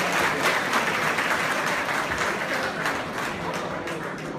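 Audience applauding, dense clapping that dies down toward the end.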